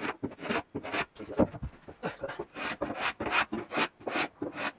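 Sandpaper rubbed back and forth along the edge of a plywood strip in quick scratchy strokes, about three or four a second, smoothing and rounding the edge.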